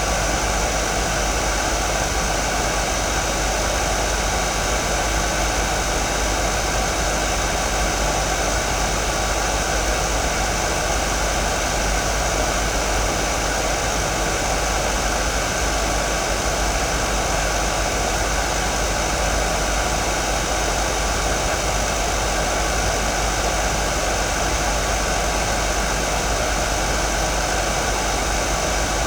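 Hair dryer running steadily: an even rush of air noise with a few faint steady tones in it.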